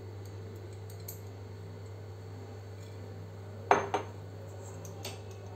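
Two quick metal clinks about four seconds in, typical of a stainless-steel strainer knocking against the steel bowl it sits on, with a fainter tap a second later, over a steady low hum.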